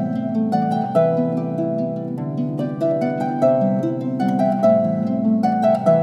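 Instrumental background music: a stream of quick notes over held lower notes.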